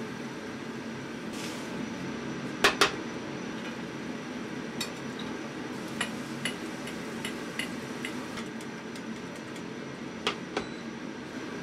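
Metal ladle and fork clinking and tapping against a frying pan and a plate, with two sharp knocks about two and a half seconds in, lighter ticks after, and two more knocks near the end, over a steady hum.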